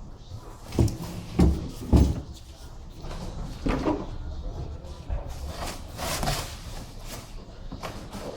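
Flat-pack cabinet panels being handled and set down: three sharp wooden knocks in the first two seconds, then softer knocks and handling noise.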